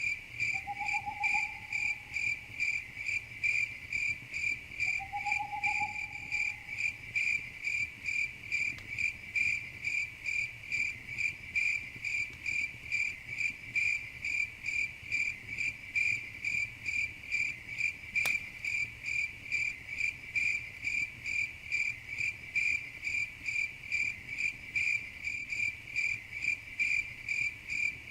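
Crickets chirping in a steady, even rhythm of about two high chirps a second. Two short, lower calls sound near the start, and a single faint click comes about two-thirds of the way through.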